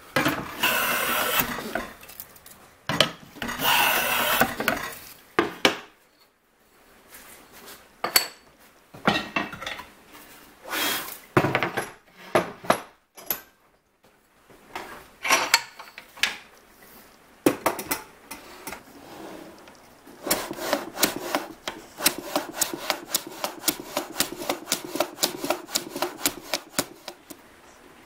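Metal hand bench plane shaving a board in two long strokes. Then come scattered knocks and clatter of hand tools handled on a wooden workbench, and in the last third a fast, even run of short scraping strokes, about four or five a second.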